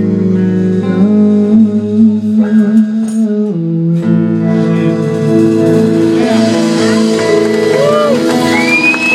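Live band playing held guitar chords over a steady low end, changing chord a few seconds in; a saxophone line comes in near the end.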